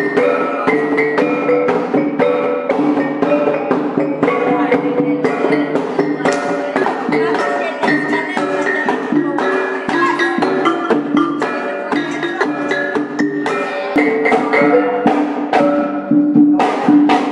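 Traditional gong ensemble playing a quick, steady rhythm: a row of small kettle gongs (cak lempong) struck with wooden sticks, ringing on several pitches, along with a hanging gong and a drum.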